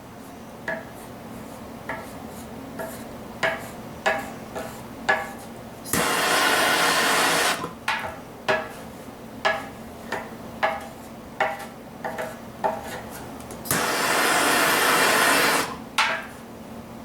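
Hand tool worked over sheet metal in short strokes, about one a second, with two stretches of loud rushing hiss lasting about two seconds each, one near the middle and one near the end.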